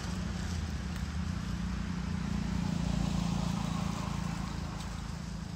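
A motor vehicle's engine running as it goes by, a low steady hum that swells about halfway through and then fades away.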